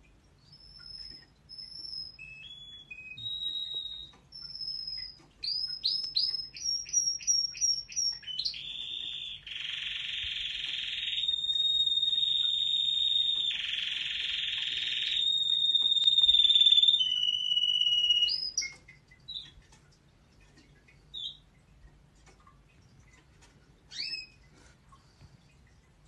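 Waterslager canary singing: a few short whistled notes, then a quick run of rising notes, then a long unbroken phrase of about ten seconds that twice turns fuller and lower, the loudest part of the song. The song stops about 18 seconds in, leaving a few scattered chirps.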